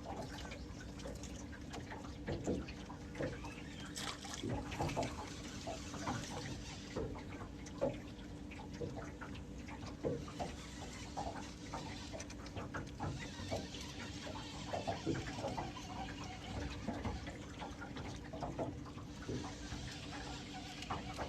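Water splashing and lapping, with scattered knocks and clicks over a steady low hum.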